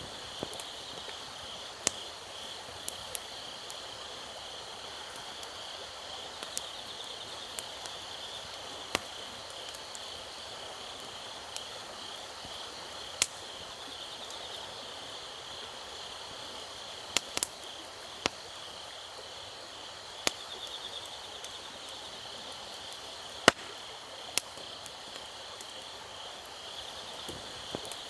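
Wood campfire crackling, with sharp pops at irregular intervals, over steady chirping of crickets.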